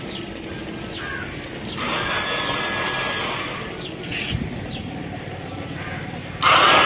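Royal Enfield Classic 350's electric starter motor whirring when the starter button is pressed, for about a second and a half around two seconds in, then starting again near the end. The bike fails to start, a fault traced to the starter's one-way bearing rather than the starter motor itself.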